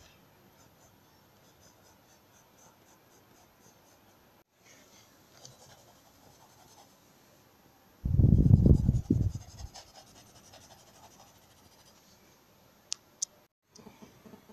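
Faint pencil strokes on notebook paper. About eight seconds in comes a deep, loud thump and rumble lasting nearly two seconds, then two sharp clicks near the end.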